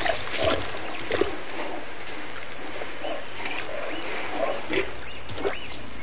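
Lionesses moving through shallow marsh water and wet grass, with a few brief splashes over a steady background hiss and scattered short animal calls.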